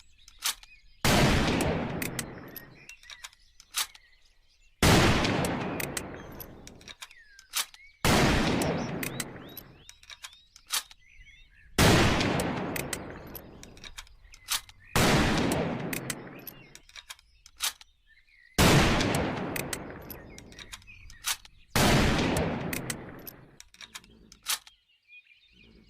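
Sharps 1874 single-shot rifle firing seven shots, about three and a half seconds apart. Each shot has a long echoing tail that dies away over about two seconds, with short sharp clicks between shots.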